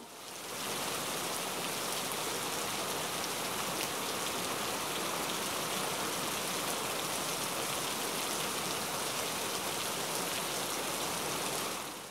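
Steady rain, an even hiss of drops falling on a surface, beginning to fade out at the very end.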